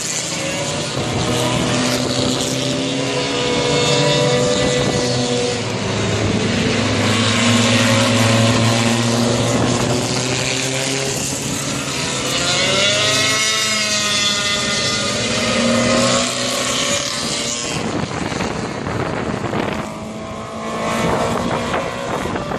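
Small-bore open-wheel race cars passing one after another on a wet track, their engine notes rising and falling as each goes by. After about 18 seconds the engines fade under a rushing noise.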